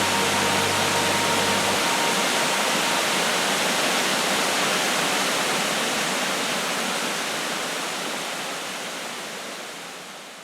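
Steady rush of a waterfall, an even wash of falling water, fading out over the last few seconds. The last held notes of background music die away about two seconds in.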